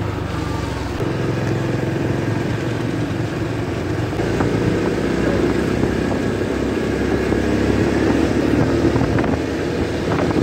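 Motorcycle engine running steadily under way, heard from the rider's seat with road noise around it; the engine note shifts about a second in.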